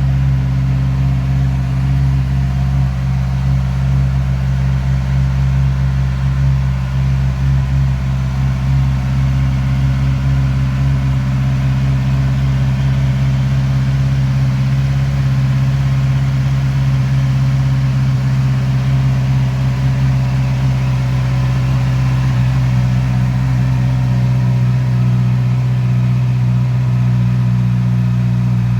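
Honda CB650R's inline four-cylinder engine with its stock exhaust, idling steadily at an even pitch.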